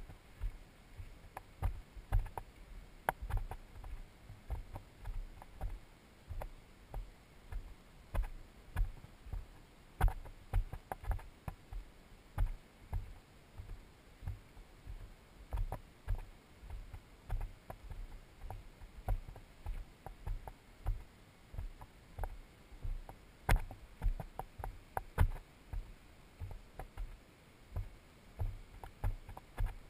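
Footsteps of a hiker walking over bare sandstone, picked up through a body-worn camera as steady low thumps about twice a second, with a few sharper clicks.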